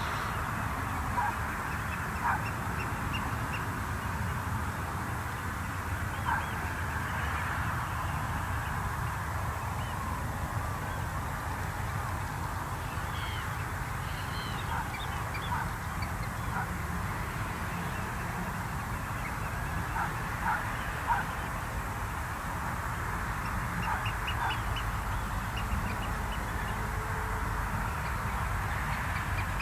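Shorebirds calling: many short, scattered calls and chatter, coming in small bunches, over a steady low rumble.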